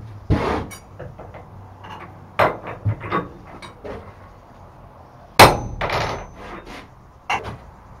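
Steel tools and bar stock being handled on an anvil: a run of irregular metal knocks and clanks, the loudest about five and a half seconds in with a brief ring.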